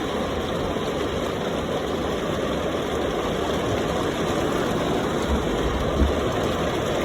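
Long freight train rolling past: a steady rumble of its wheels on the rails.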